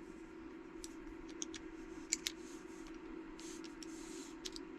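Faint metal clicks of an AR-15 bolt carrier group being put back together, as the bolt cam pin is fitted into the carrier and bolt: a handful of scattered small clicks, two of them in quick pairs. A steady low hum runs underneath.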